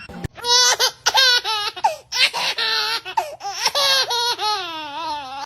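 A small child laughing hard in repeated high-pitched giggles and squeals, ending in a long laugh that falls in pitch.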